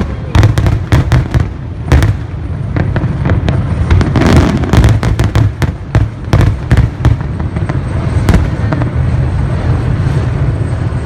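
Aerial fireworks bursting in rapid succession: many sharp bangs and crackles over a deep rolling rumble, thinning out over the last couple of seconds.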